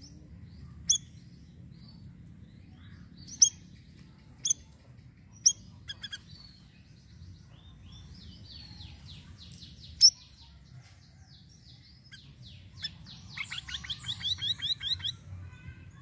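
Siri-siri (streaked bulbul) singing: sharp single high chirps spaced a second or so apart, then a fast run of clear notes near the end.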